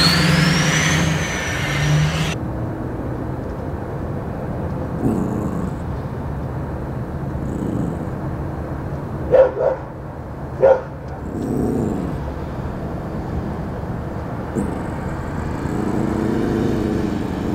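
A small dog barks twice, a second and a half apart, about nine seconds in, over a steady low background rumble.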